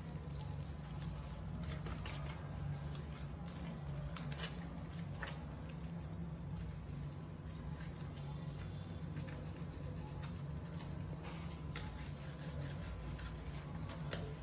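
Hands scrubbing shampoo lather into a wet cat's fur: soft rubbing and squelching with scattered small clicks, over a steady low hum.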